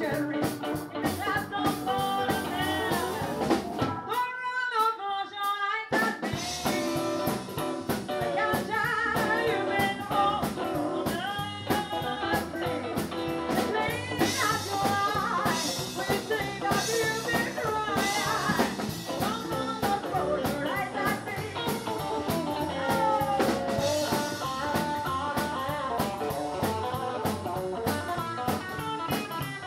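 Live rockabilly band playing: a woman singing over electric guitar, upright double bass and drum kit. About four seconds in, the bass and drums drop out for a couple of seconds, then the full band comes back in.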